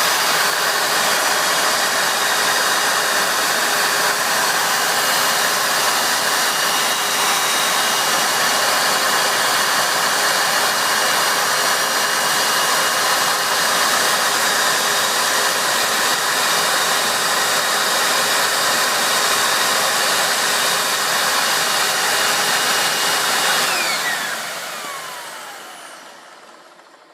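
Hoover WindTunnel U6630-900 upright vacuum's 12-amp motor running steadily with a whine. It is switched off a few seconds before the end, its whine falling in pitch as the motor spins down and the sound fades away.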